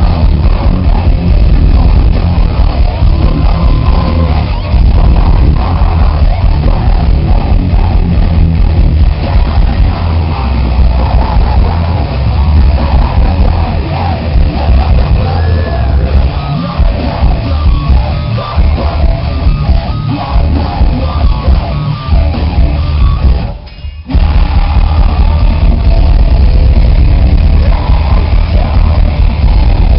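Metalcore band playing live: loud, bass-heavy distorted guitars, keyboards and drums, with a short break just under a second long near the end before the band crashes back in.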